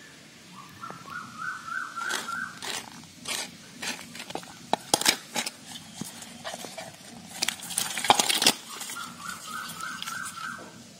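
Live climbing perch thrashing in a little water in a steel bowl: a flurry of sharp splashes and slaps against the metal, loudest around the middle and again about three-quarters of the way through. A bird calls twice in the background, each call a run of short notes climbing in pitch, once before the splashing and once after it.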